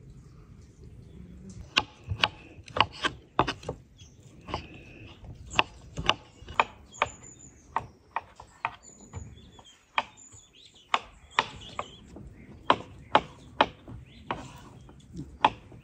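Knives chopping vegetables and cutting raw chicken on wooden cutting boards: sharp, irregular knocks, about one or two a second, starting about two seconds in.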